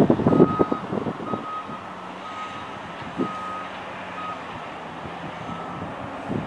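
Mining equipment working: a backup alarm sounds in short, unevenly spaced beeps over the steady drone of large diesel engines. In the first second there is a burst of heavy rumbling and clatter.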